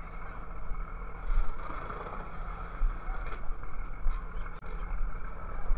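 Boat engine running steadily at sea, with wind gusting on the microphone.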